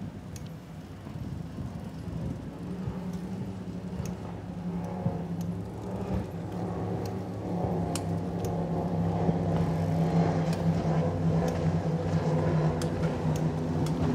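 A motor engine humming steadily, growing louder, with faint scattered clicks over it.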